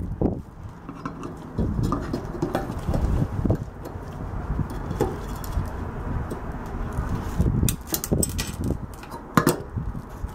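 Small metal clicks, clinks and scrapes as a screwdriver and the turntable motor are handled against the microwave's sheet-metal cavity, over a low rumble. A few sharper clicks come near the end.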